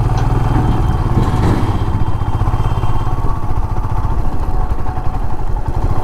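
Motorcycle engine running steadily while under way, a fast even low pulse.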